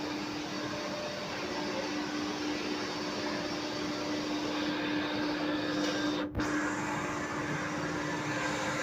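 Machine-shop machinery running steadily: a constant motor hum over a broad hiss, with a brief dropout a little past six seconds in.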